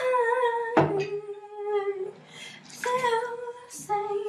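A woman's voice humming a tune in long held notes, with a short knock about a second in.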